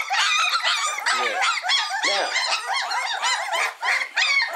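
A litter of Cane Corso puppies crying together, many high whines and yelps overlapping without a break. The puppies are hungry and crying to be fed.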